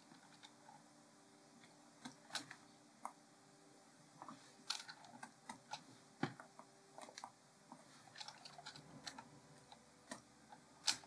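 Faint, irregular clicks of a computer mouse and keyboard as objects are shift-clicked one after another. The clicks come more often from about four seconds in, over a faint steady hum.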